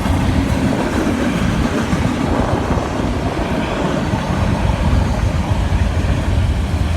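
Freight train rolling past close by: a steady, loud rumble and rattle of cars and wheels on the rails.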